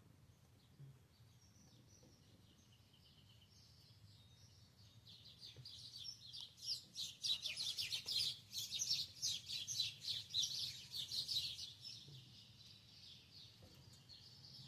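A bird chirping in a rapid run of high notes. It starts faint and sparse, swells to a dense burst of chirps about halfway through, then fades away.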